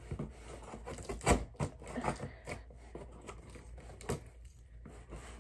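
A key jabbing and scraping at the packing tape on a cardboard shipping box, making scattered scratches and clicks, with louder knocks about a second in and again about four seconds in.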